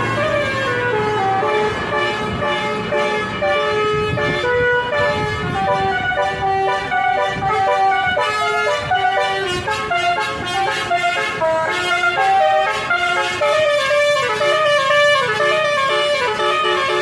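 Basuri telolet multi-tone bus horn playing a melody, a steady run of held notes that step up and down in pitch.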